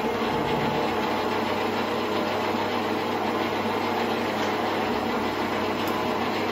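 Bernardo Profi 550 WQV bench metal lathe running without a cut, its spindle and headstock gearing turning at a steady speed with an even mechanical hum.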